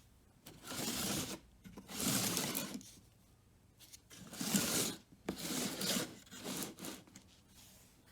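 Four short bursts of rubbing or scraping noise, each under a second long, with quiet gaps between them.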